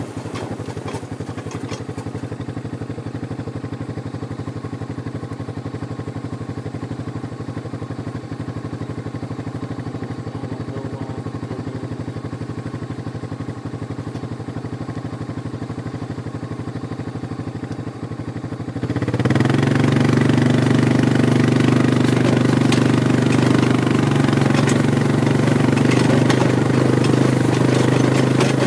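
An engine running steadily, with an even firing pulse; about two-thirds of the way through it gets markedly louder and stays so.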